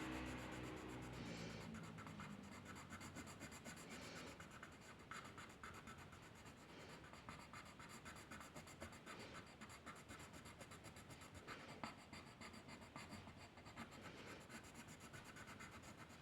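Faint scratching strokes of a drawing tool on paper, many short strokes in a row.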